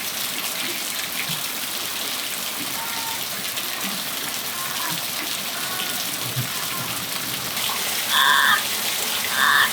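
Steady rain falling on a patio, with faint short bird chirps through it. Near the end a parrot gives two loud calls about a second apart, each lasting about half a second.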